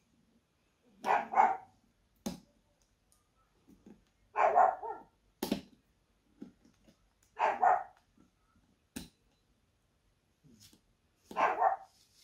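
A dog barking four times, one single bark about every three seconds. Three sharp clicks fall between the barks.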